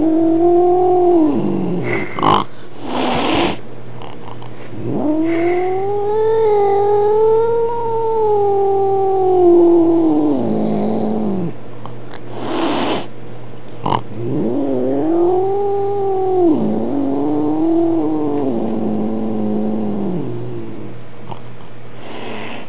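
Maine Coon cat yowling: several long, drawn-out caterwauls that rise and fall slowly in pitch, the longest lasting about six seconds, broken by two short hiss-like bursts. It is a cat's upset, territorial complaint at a visiting kitten.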